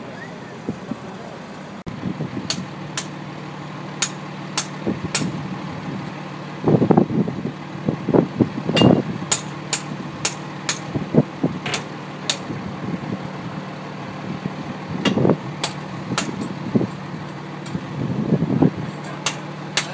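Oil drilling rig's engines running steadily, with many sharp metallic clanks and knocks from work on the rig floor and a few louder bangs.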